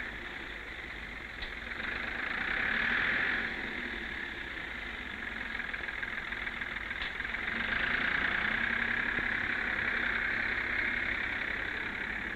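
Ford Major 4000 tractor engine running, swelling in loudness twice as the front-end loader works.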